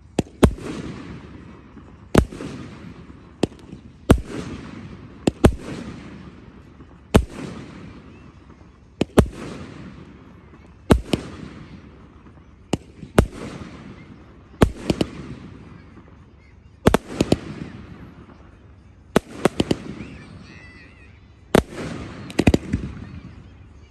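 Fireworks display shells bursting with sharp bangs every second or two, some in quick pairs or triplets, each bang trailing off in an echoing rumble.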